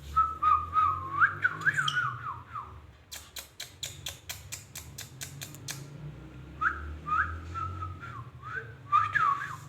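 A pet parrot whistling: strings of short notes that slide up and down. Between the two strings comes a rapid run of sharp clicks.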